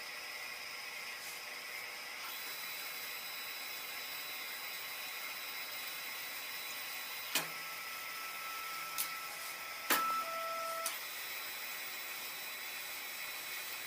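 3D printer running, its fans giving a steady whir. About halfway through and again around ten seconds there are a few sharp clicks, with short steady whines between them.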